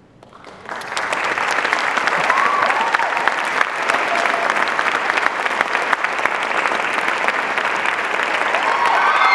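Audience applause that breaks out about half a second in and builds quickly to a steady, loud clapping, with a few whoops and cheers.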